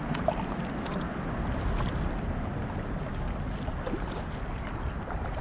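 Kayak gliding forward through calm water: a steady rush of water and wind on the microphone, with a few faint knocks.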